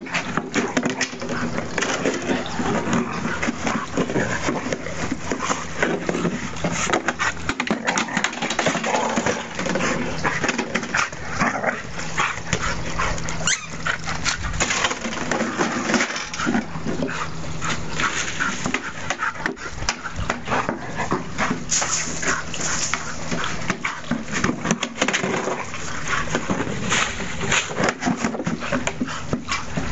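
A dog playing rough with a plastic watering can: the can knocks, clatters and scrapes over and over across the patio and lawn as the dog pushes and bites it, with the dog's own noises mixed in.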